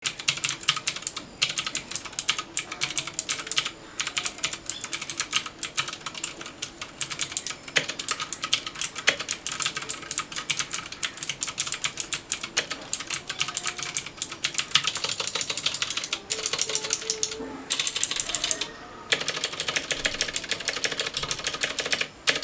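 Fast, continuous typing on a Cosmic Byte CB-GK-16 TKL mechanical keyboard with clicky Otemu Blue switches. The typing makes a dense run of sharp clicks with a few brief pauses. It is a typing sound test of a keyboard that has a solid build.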